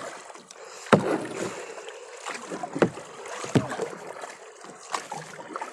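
Kayak paddle strokes in the water: splashing pulls with sharp knocks every second or two, over steady water noise.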